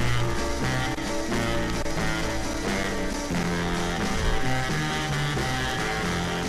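Background music: a rock tune with guitar and a moving bass line, running at a steady level.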